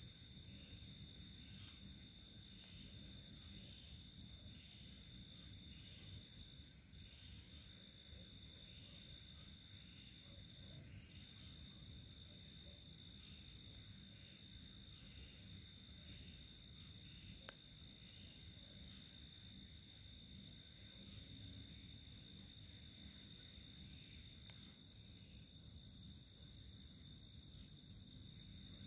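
Faint night chorus of crickets: a continuous high trill with regular chirps about twice a second, over a low background rumble.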